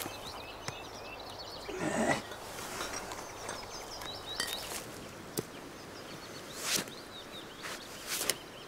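Forest ambience with small birds chirping, broken by scattered knocks and rustles from someone working in the undergrowth with a small hand tool. The loudest rustle comes about two seconds in, and a sharp click about five and a half seconds in.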